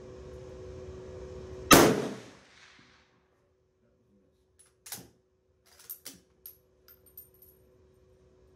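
A single rifle shot from a Swiss K11, a 7.5×55 mm straight-pull bolt-action, about two seconds in, with a short echo. Several sharp metallic clacks follow a few seconds later as the straight-pull bolt is worked. A generator hums steadily underneath.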